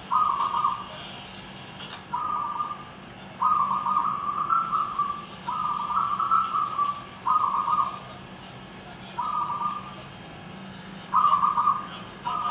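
Several zebra doves (perkutut) cooing back and forth: a string of rolling coos, each about a second long and some running longer, following one another every one to two seconds.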